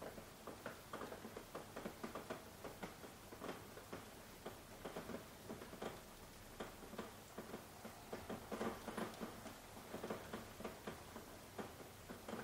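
Soft rain, individual drops tapping irregularly several times a second over a faint steady hiss.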